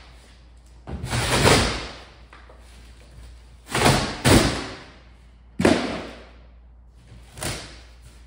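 Heavy corrugated cardboard of a large shipping box being torn and pulled apart by hand: five loud ripping, crunching bursts, each dying away quickly.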